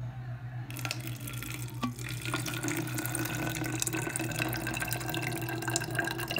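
Water being poured in a thin stream from a plastic jug into a narrow-necked plastic bottle, a splashing, gurgling fill that starts under a second in and keeps going. A steady low hum runs underneath.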